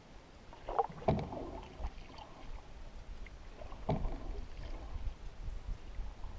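Wooden canoe paddle strokes: two splashes of water as the blade dips and pulls through, about three seconds apart, with another starting at the very end, over a steady low rumble.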